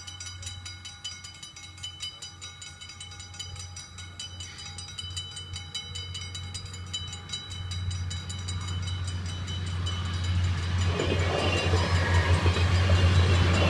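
Level-crossing warning bells ringing in a fast, even rhythm while a GTW diesel railcar approaches. The train's engine and running noise grow steadily louder from about halfway and are loudest as it crosses near the end.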